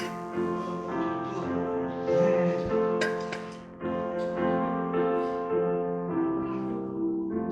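Piano playing a slow piece in sustained chords.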